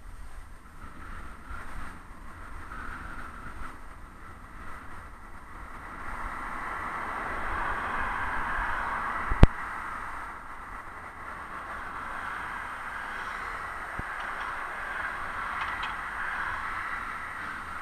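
Cars overtaking a bicycle on a road, their tyre and engine noise swelling and fading over low wind rumble on the microphone, loudest about halfway through. One sharp knock just after that swell is the loudest sound.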